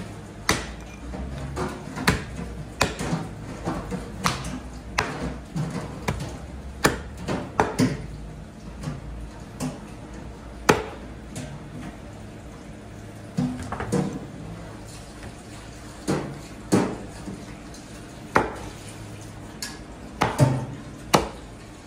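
Meat cleaver chopping raw meat on a thick wooden butcher's block: sharp chops at an uneven pace, in clusters separated by short pauses.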